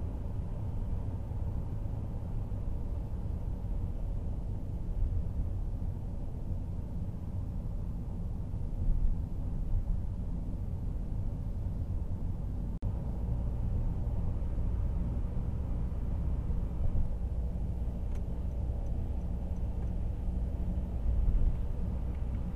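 Cabin noise of a Honda N-WGN kei car climbing an expressway ramp: a steady, low hum of engine and road noise that stays quiet while the car climbs. In the last third the engine grows a little louder as the car accelerates into the right lane.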